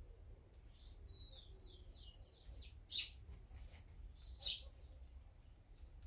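Small wild songbirds calling: a quick run of five or six short falling notes, then two loud sharp chirps over a second apart, over a steady low rumble.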